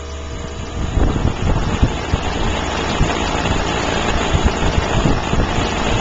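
Outdoor air conditioning condensing unit running with a steady hum; about a second in, a loud rush of air starts, buffeting the microphone with irregular low thumps.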